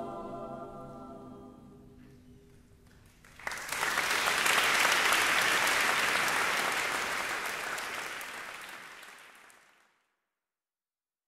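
A mixed choir's final held chord dies away into the hall's reverberation, then audience applause breaks out suddenly about three and a half seconds in and slowly fades until the sound cuts off near the end.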